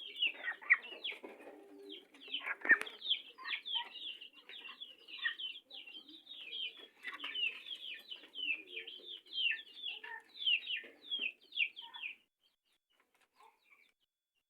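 A flock of kampung chickens in a coop, clucking and chirping in quick short calls that overlap. The calls stop abruptly about twelve seconds in.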